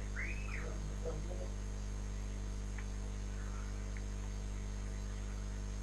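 Steady electrical mains hum with a stack of low harmonics, plus a faint steady high-pitched whine.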